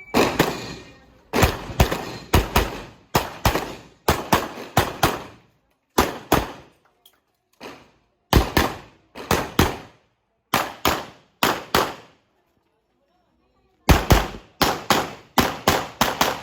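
A string of gunshots, mostly fired in quick pairs about a third of a second apart, with a ringing echo after each shot. There are brief pauses between groups, including a longer gap of about two seconds near the end.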